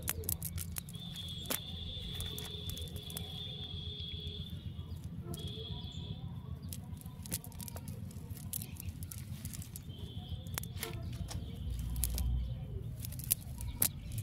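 Hands working a fine-mesh fishing net on wet ground: scattered small clicks and rustles from the net being pulled and picked through, over a low steady rumble. A thin high steady whistle comes and goes three times in the background.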